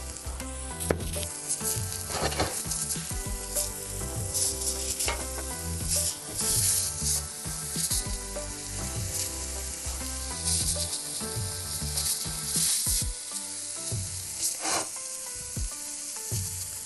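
Tomahawk steak sizzling on a cast-iron grill plate in a hot wood-fired pizza oven, a steady hiss broken by scattered crackles.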